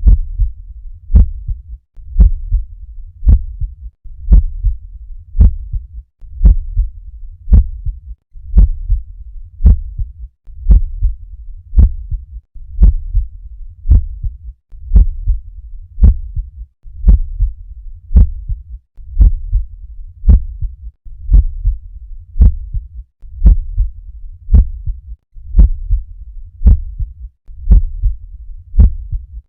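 Heart sounds recorded through a stethoscope, beating steadily at about one beat a second; each beat is a sharp click over low thudding.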